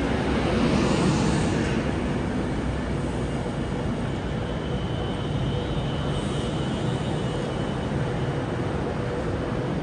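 A train running: a steady rumble with a constant hum, swelling briefly about a second in.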